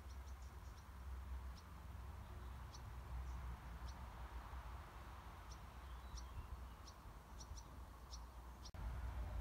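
Outdoor ambience: a low rumble of wind on the microphone, with scattered short, high bird chirps.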